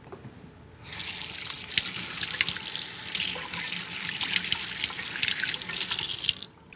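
Kitchen tap running onto raw chicken pieces held under the stream, water splashing into the sink as they are rinsed. The water comes on about a second in and is shut off shortly before the end.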